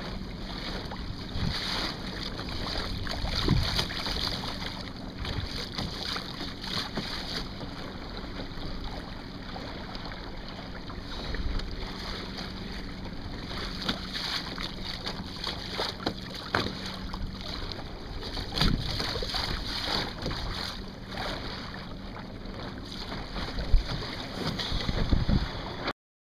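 Wind buffeting the microphone and water rushing and splashing along the hull of a Banshee sailing dinghy under way, with irregular splashes and gusts. The sound cuts off suddenly near the end.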